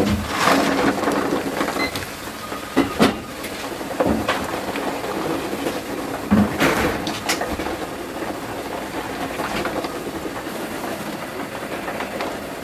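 Boiled eggs tumbling from a plastic colander into a large pot of boiling water, with a clatter and splashing just after the start. The water bubbles steadily at the boil, with a few more knocks of eggs and utensils against the pot.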